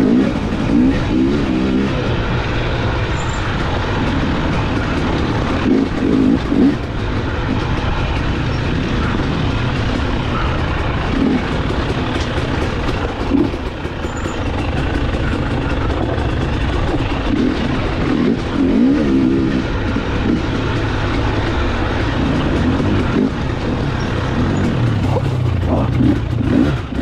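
A KTM 300 XC TPI two-stroke single-cylinder dirt bike engine running under way over rough singletrack. The note rises and falls again and again as the throttle is worked.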